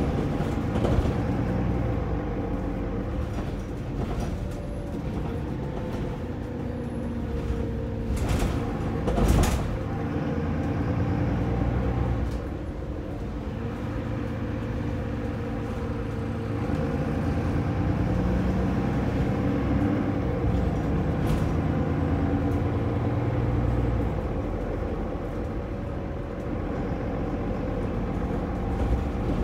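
Mercedes-Benz Citaro bus's OM906LA six-cylinder diesel engine running under way, heard inside the passenger saloon near the rear, its note rising and falling. Two sharp knocks come about eight and nine seconds in.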